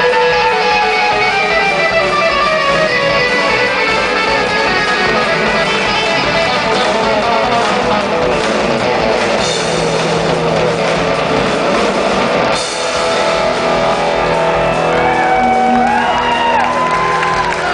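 Live electric band: electric guitars play fast lead runs over bass guitar and drums. Near the end, a guitar bends notes up and back down.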